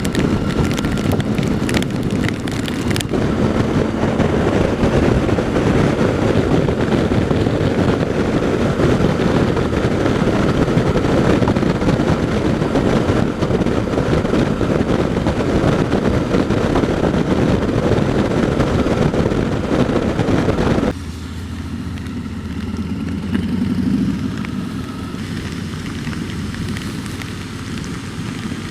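Heavy wind rush on a helmet-mounted microphone while riding a motorcycle, with the bike's engine running underneath. About 21 seconds in, the noise drops suddenly to a much quieter, steadier level.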